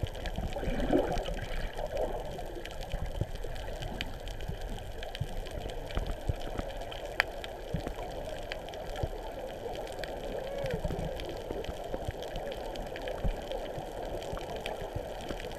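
Underwater ambience picked up by a submerged camera: a muffled, steady wash of water with gurgles and scattered sharp clicks, one sharper click about seven seconds in.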